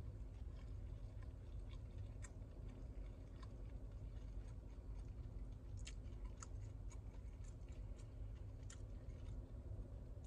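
Close-up chewing of a mouthful of fried chicken sandwich: soft, scattered crunches and wet mouth clicks, a few sharper ones, over a low steady hum.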